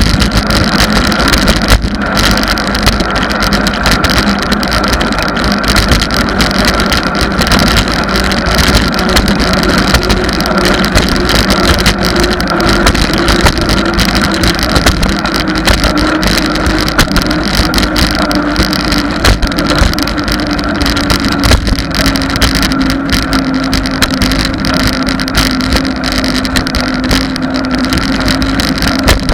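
Steady wind buffeting a bicycle-mounted camera's microphone, with road noise from riding along asphalt. A faint hum underneath slowly drops in pitch.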